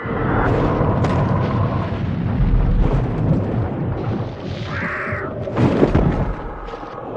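Kaiju-film sound effect from the Heisei Gamera films: a dense, rumbling blast-like effect with scattered sharp hits, a brief higher-pitched sound about five seconds in and the loudest hit shortly after.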